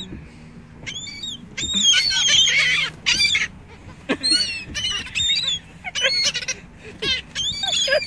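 A flock of gulls calling close by, one short harsh call after another. Several call at once, overlapping, about two to three seconds in.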